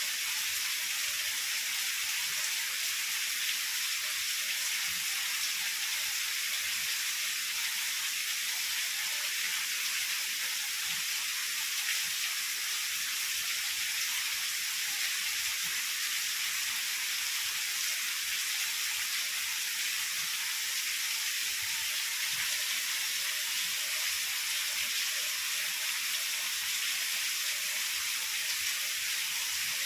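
Heavy rain falling steadily: a dense, even hiss with little low end.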